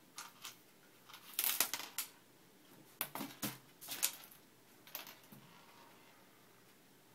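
Small hard objects clicking and rattling against the bottom of an emptied desk drawer as a cat bats them around with its paws. The sound comes in several short bursts of quick clicks, the loudest about one and a half seconds in, then two more bursts around three and four seconds.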